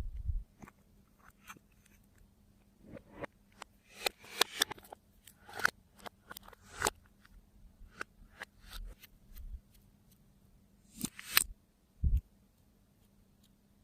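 Slime being worked by hand, giving scattered sticky clicks and crackles, with a louder cluster of crackles about eleven seconds in.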